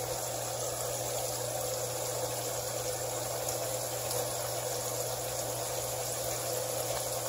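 A steady rushing noise with a low hum underneath, unchanging throughout.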